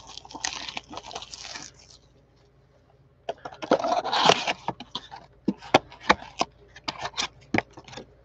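A cardboard trading-card blaster box being unwrapped and opened: plastic wrap crinkles and tears for about two seconds, and after a short pause the cardboard flaps are pulled open and the box is handled, with a run of sharp snaps and clicks.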